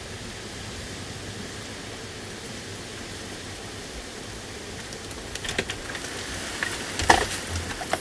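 Steady rain falling, with a few knocks and bumps in the last few seconds, the loudest about a second before the end.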